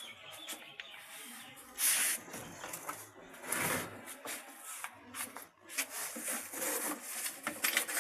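Irregular scraping, rubbing and light knocking as washing machine parts are handled, with louder scrapes about two seconds in and near the middle.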